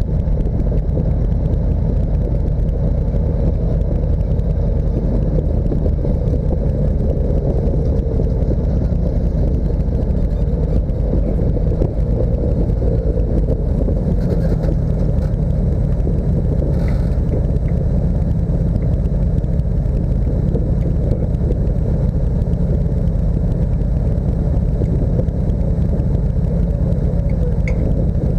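Steady low rumble of a motor vehicle under way, engine and road noise holding even with no revving or change in pitch.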